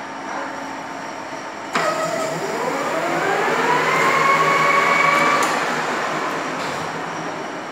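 Centre lathe started with a sharp click a little under two seconds in. The spindle and four-jaw chuck spin up with a rising whine that levels off, then fades away, over a steady workshop machine hum.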